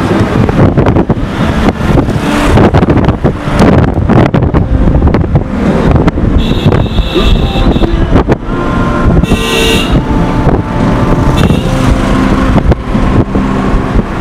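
Car interior road and engine noise while driving, with wind buffeting the microphone. A couple of short high-pitched tones sound about halfway through.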